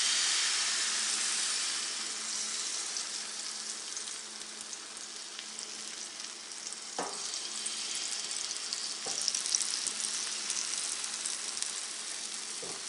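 Egg-and-flour paratha batter sizzling in a nonstick frying pan right after it is poured, loudest in the first couple of seconds and then settling to a softer, steady sizzle as it sets. A few faint light knocks come through in the second half.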